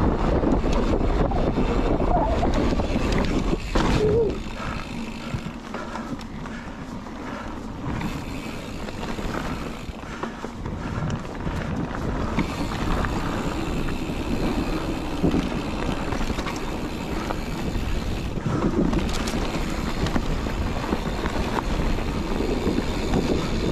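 Mountain bike riding fast downhill on a dirt trail: wind rushing over the camera microphone, mixed with tyre and rattling noise from the bike. Loudest for the first few seconds, then it drops and slowly builds again.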